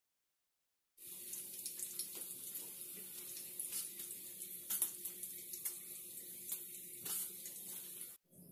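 Water running from a kitchen tap into a sink, a steady hiss with small splashes and clicks. It starts about a second in and cuts off abruptly near the end.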